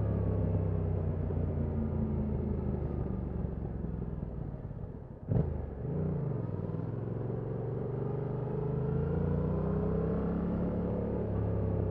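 Stock 2021 Yamaha MT-07's 689 cc parallel-twin engine on the road. It winds down at first, gives a sharp loud knock about five seconds in with a quick rev up and down right after, then pulls with rising pitch as the bike accelerates.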